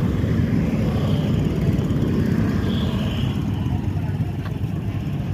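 Street traffic at close range: small motor scooters and cars passing, engines running steadily.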